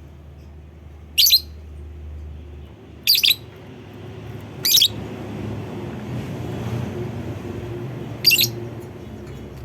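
Lovebird giving four short, shrill chirps a second or more apart, over a low steady rumble.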